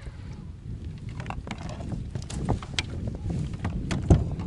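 Wind rumbling on the microphone of a kayak, with a string of sharp knocks and clicks from handling on the kayak during a fish fight. The knocks start about a second in, and the loudest comes near the end.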